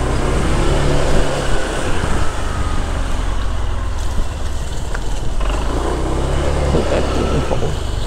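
Road traffic noise: a steady rumble of passing vehicle engines and tyres, with an engine note rising and falling near the end.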